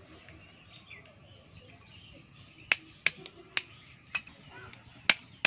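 A run of short, sharp clicks and snaps, about six in the second half, from hands digging through soil and dry plant litter. Faint bird chirps sound behind them.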